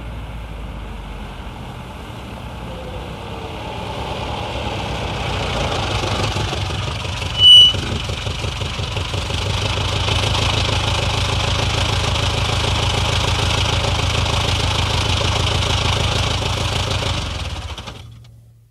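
Badly worn 1962 Sunbeam Rapier's four-cylinder engine drawing closer, then a short, very loud high-pitched brake squeal as the car pulls up. The engine then ticks over steadily and is switched off near the end, running down to silence.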